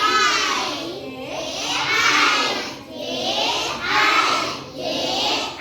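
A group of children answering in chorus, calling out drawn-out, sing-song syllables one after another.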